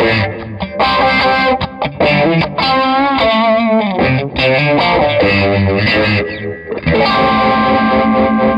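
Distorted electric guitar played through a chorus/vibrato effect, the notes wavering in pitch. About seven seconds in it settles on a held chord that throbs with the effect.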